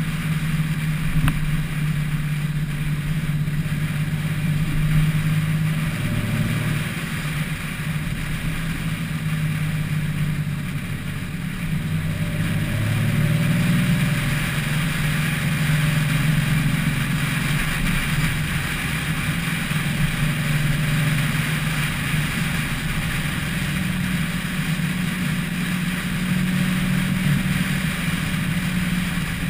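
Car driving along a road, heard from a roof-mounted camera: a steady engine drone under wind and road noise. The engine note shifts in pitch about 6 and 13 seconds in.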